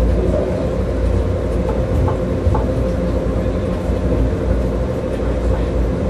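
Rubber-tyred Wenhu line metro train running, heard from inside the car: a steady low rumble with a constant hum and a few faint ticks.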